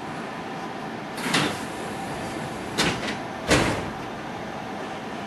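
Sliding passenger doors of a JR West 207-series commuter train opening at a station stop: three sharp noises, one about a second in and two more close together about three seconds in, over a steady background hum.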